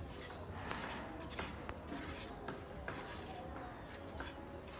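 Rhythmic scraping strokes on a rough surface, about three every two seconds, over a low steady hum.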